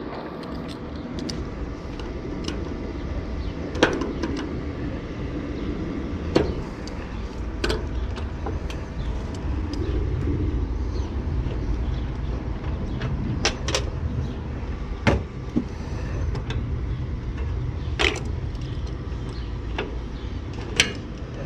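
Scattered sharp clicks and knocks of hand tools and metal parts being handled on an air-conditioner outdoor unit, over a steady low rumble.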